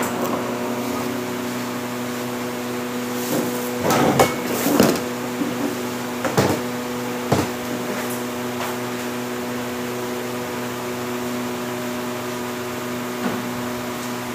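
A steady electrical hum from running appliances, with a cluster of clinks and knocks of plates and cutlery about four to seven seconds in, loudest around four to five seconds.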